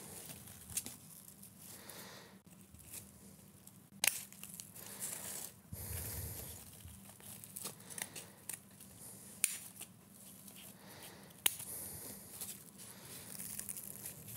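Scissors snipping, with rustling and tearing, as the excess of a glued wig base is cut away around a doll's head. A few sharp snips stand out now and then.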